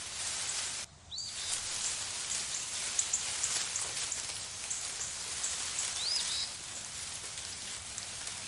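Steady rain-like hiss of outdoor nature ambience, with a brief dropout about a second in and a few short high chirps.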